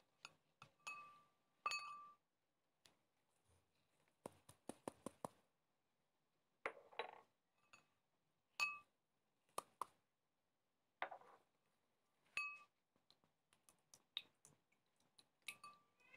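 Faint clinks of small glass and ceramic bowls knocking against a mixing bowl as ingredients are tipped in, each clink ringing briefly. A quick run of light taps comes about four seconds in, and short pouring sounds follow around seven and eleven seconds in.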